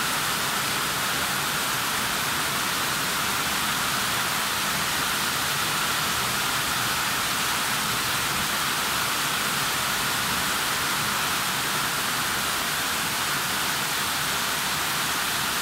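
Heavy rain pouring down steadily onto roofs and a flooded yard, an even hiss with no let-up.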